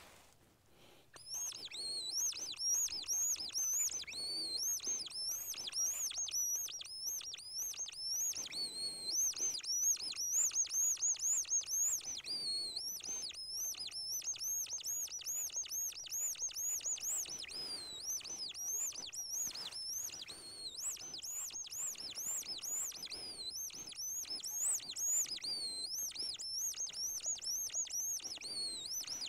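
Hand-held squirrel call blown in a fast run of high, squeaky chirps that imitate squirrel chatter, meant to make a hidden squirrel answer and give away where it is. It starts about a second in and goes on with only short pauses.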